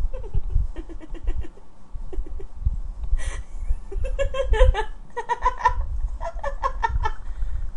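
A person giggling in two runs of quick, rhythmic laughs, the second longer and louder, with a short sharp sound between them and low thumps underneath.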